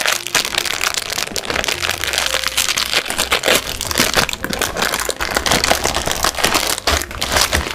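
Plastic cracker packaging crinkling and crackling as hands pull the outer bag open and draw out the foil-wrapped inner packs, in a dense, irregular stream.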